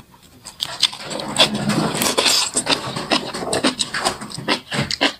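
Close-up chewing of napa cabbage kimchi: irregular wet, crunchy mouth sounds.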